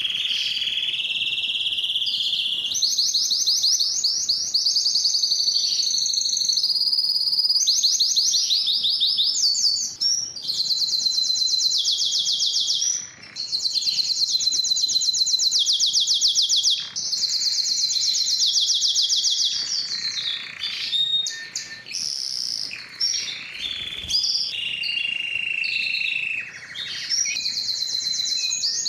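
Canary singing a continuous, high-pitched song of rapid trills, one run of quickly repeated notes giving way to the next every second or two, with a few short breaks.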